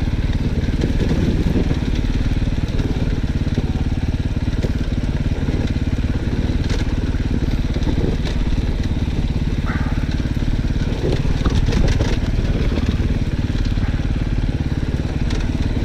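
Dirt bike engine running steadily as the bike is ridden along a track.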